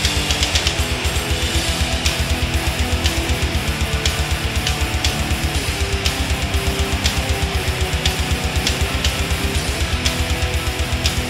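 Background music: a guitar-led rock track over a fast, steady beat.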